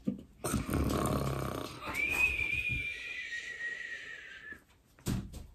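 A man voicing a pretend snore for a puppet: a rough snoring inhale, then a long whistled exhale that slides slightly down in pitch.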